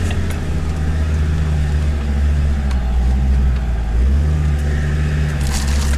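Land Rover Discovery 2's Td5 five-cylinder turbodiesel running steadily as it pulls the vehicle slowly up a rough, rocky track, heard from inside the cabin. Its note rises a little about four seconds in, and a few knocks come near the end.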